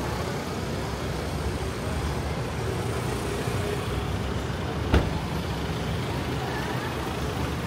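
Street traffic: a steady low rumble of passing vehicles, with one sharp click about five seconds in.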